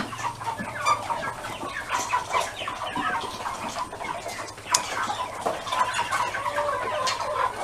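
A flock of Cornish Cross meat chickens clucking and chirping continuously as they feed, with many short overlapping calls and scattered sharp clicks.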